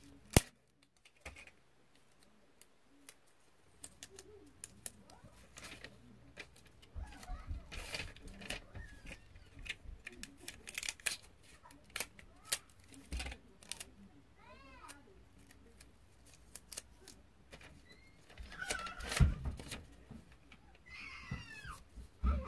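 Scattered clicks, taps and rustles of paper and sticky tape being handled as a paper cover is taped onto a tablet, with a few dull knocks on the table, the loudest about nineteen seconds in.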